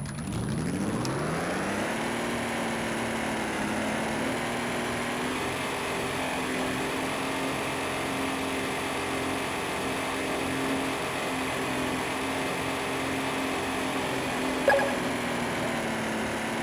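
Electric RC car's motor and gears whining, rising in pitch over the first two seconds as the car pulls away from standstill, then running steadily at speed over a steady rushing noise.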